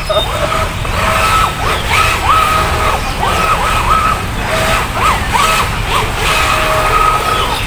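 Remote-controlled model speedboat's small motor whining on the water, its pitch dropping and rising again several times as the throttle is eased and opened. A steady low rumble runs underneath.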